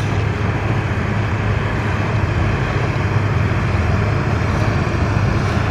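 Jon boat's outboard motor running steadily underway, a constant low hum mixed with the rush of wind and water past the boat.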